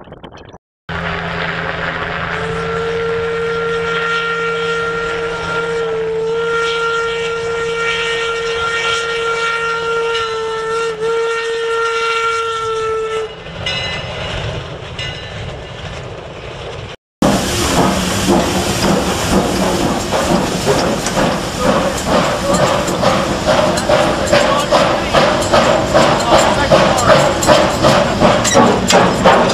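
Eureka & Palisade No. 4, an 1875 Baldwin 4-4-0 steam locomotive, blowing its steam whistle in one long blast of several steady tones. After a break, from inside the cab, its exhaust chuffs in an even beat of about two a second, growing louder toward the end.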